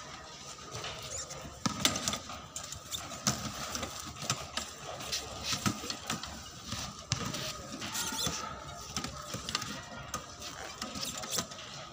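Manual wheelchairs being pushed and turned on a concrete court: irregular clicks and knocks from wheels, push rims and frames, over voices in the background.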